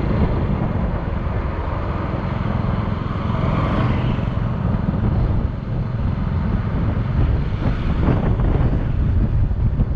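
Motorcycle engine running steadily while riding at road speed, under a steady low wind rumble on the microphone.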